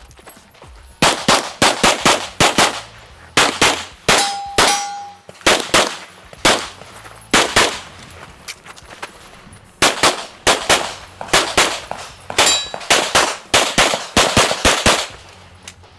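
Pistol gunfire at close range during a practical-shooting stage run: quick strings of shots, several a second, broken by short pauses, the longest about eight seconds in during a magazine change.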